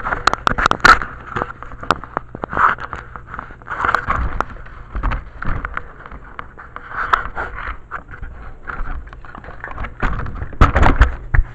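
Radio-controlled toy car driving, its wheels and chassis scraping and crackling over the ground with many sharp clicks and knocks, busiest near the start and again near the end.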